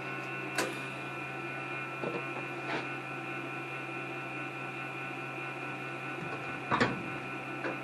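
Steady electrical hum of a TIG welder standing switched on, with a few short sharp clicks and taps, the loudest near the end.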